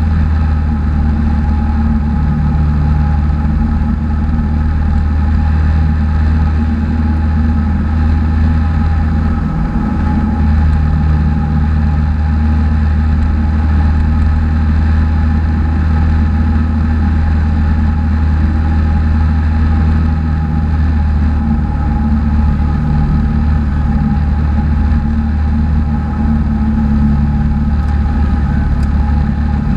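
Cessna 182's single piston engine and propeller running steadily at approach power, heard inside the cockpit as a loud, even drone with a deep hum.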